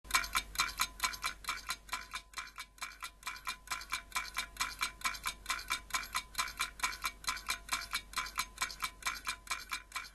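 Rapid, even ticking, about four ticks a second: a countdown-timer sound effect.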